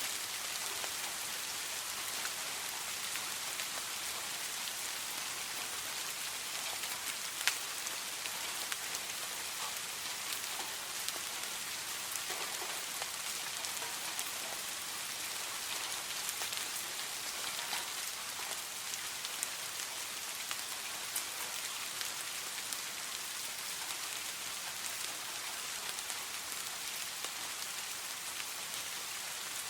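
Gentle rain falling steadily: an even hiss of rain with scattered sharper drop ticks, one louder tick about seven seconds in.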